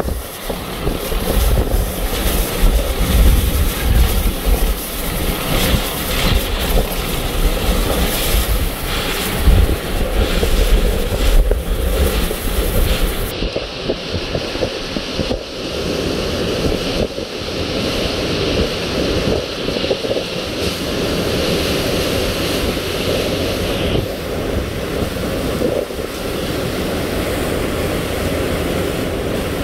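Category-2 hurricane wind blowing in strong gusts with wind-driven rain, buffeting the microphone with low rumbles. About halfway through it changes abruptly to a steadier, less gusty rush of wind.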